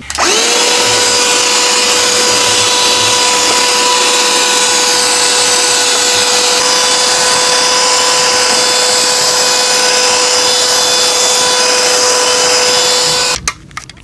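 Parkside PHSSA 20-Li A1 cordless handheld vacuum cleaner switching on and spinning up to a steady high whine over a loud rush of air as it sucks up sawdust, then switching off and cutting out suddenly near the end.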